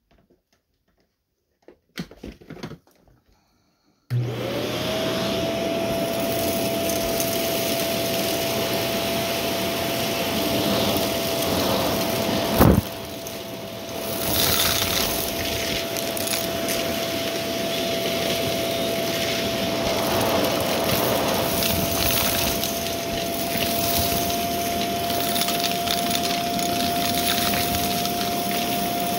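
A few light handling clicks, then a Shark Navigator upright vacuum switches on about four seconds in: its motor whine rises quickly and settles to a steady pitch, running with the brushroll under a steady rush of air. About halfway through there is a single sharp knock and the sound dips briefly before steady running resumes, with uneven swells of rattling noise over the motor.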